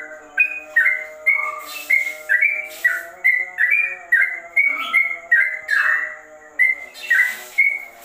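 Caged yellow-vented bulbul (trucukan) singing a continuous rapid run of loud whistled notes, about two to three a second without a break, in the 'ropel' style that bird-keepers liken to a straw-headed bulbul's song.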